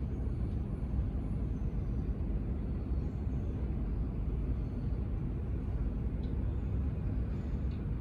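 Steady low rumble of airport background noise, with no distinct events.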